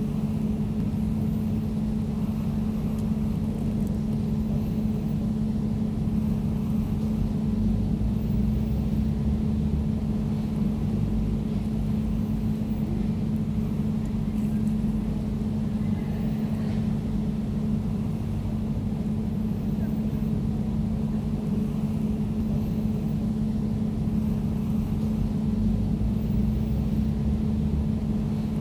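Air conditioner running steadily: a constant low hum over a dense, unchanging low rumble.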